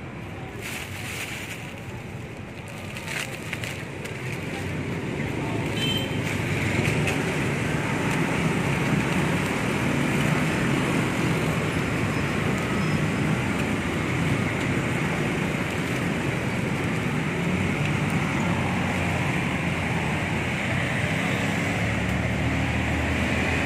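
Steady street traffic noise with the rumble of passing vehicles, growing louder a few seconds in and then holding. A few brief rustles come in the first few seconds.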